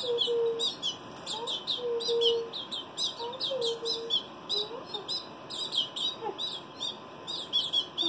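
Baby canaries chirping without pause: short, high chirps that sweep downward, several a second, the begging calls of fledglings being spoon-fed.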